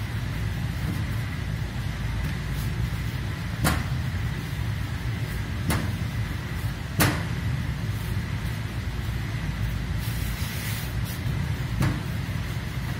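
Rolling pin working dough on a stainless-steel worktop, with a few sharp knocks against the steel, over a steady low hum.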